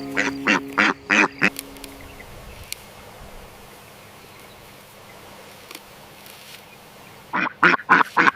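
Ducks quacking in two quick runs of about five quacks each, one right at the start and one near the end, with faint hiss between.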